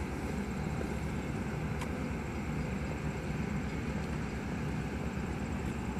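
Steady low rumble of a Metra commuter train standing at the platform with its diesel locomotive running, and a faint click about two seconds in.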